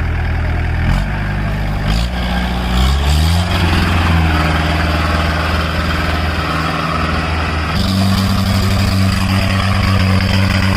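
Off-road jeep's diesel engine running under load, its pitch climbing in steps over the first few seconds, then holding steady. About eight seconds in, the sound changes abruptly to a different steady engine note.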